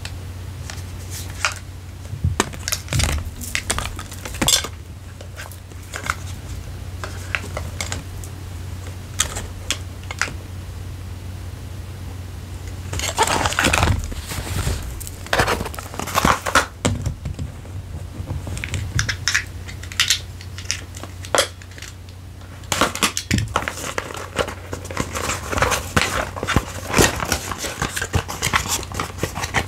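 Close-miked unboxing handling of a Canon EOS R8 camera and its packaging: scattered light taps and clicks, with denser flurries of rustling and scraping about halfway through and again over the last several seconds, over a low steady hum.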